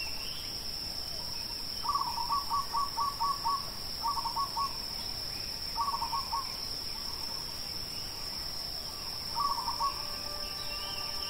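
Outdoor ambience of a steady, high-pitched insect chorus, like crickets, with a bird calling several times in quick runs of repeated short notes.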